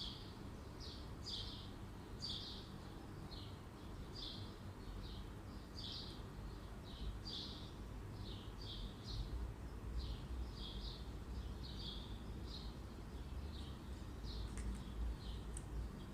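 A bird chirping over and over, in short chirps about two or three a second, over a low steady rumble.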